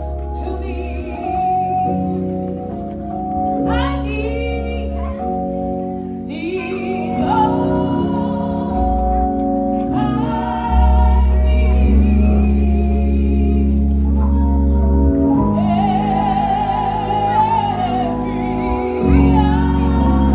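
Gospel singing: a voice with wide vibrato over long held instrumental chords with a heavy bass.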